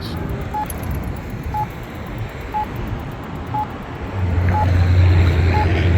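Accessible pedestrian signal pushbutton's locator tone: a short beep about once a second. From about four seconds in, a vehicle's engine rumbles loudly over it as traffic passes.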